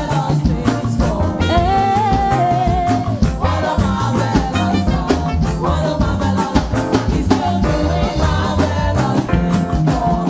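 Live gospel praise band music with a steady drum beat, bass and a held melody line.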